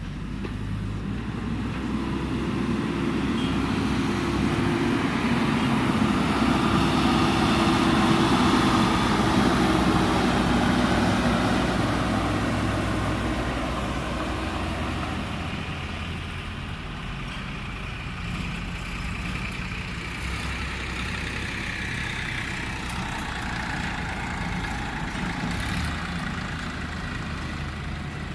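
Diesel engine of a JCB backhoe loader running steadily. It swells louder toward the middle, as if working under load, then eases back to a lower, even run.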